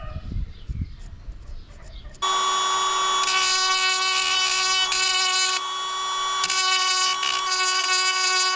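A small high-speed power tool switches on abruptly about two seconds in and runs with a steady high whine, dipping briefly near the middle. Before it starts there is low rumbling and knocking.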